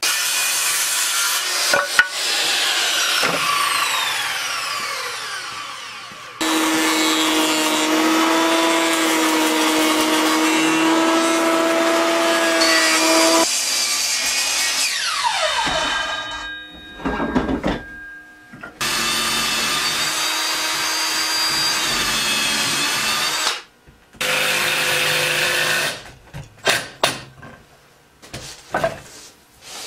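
Electric woodworking power tools start and stop several times, each motor running with a steady whine and several dying away with a falling pitch as they wind down. The last few seconds hold a series of short, sharp bursts.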